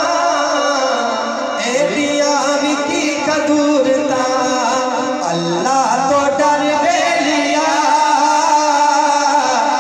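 Men singing a devotional Urdu/Punjabi song in praise of Ali (a manqabat), into microphones over a PA system, with long, wavering melodic lines.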